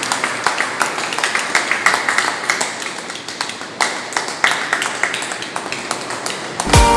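A small group of people clapping by hand, with dense, uneven claps. Near the end, electronic music with a heavy beat starts.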